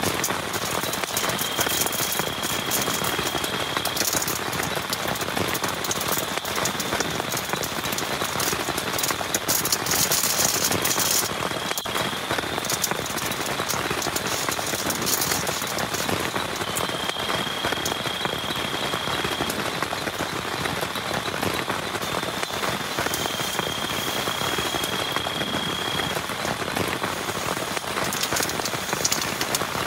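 Heavy rain falling steadily, with many close individual drop hits. A faint thin high tone comes and goes about four times, each lasting a few seconds.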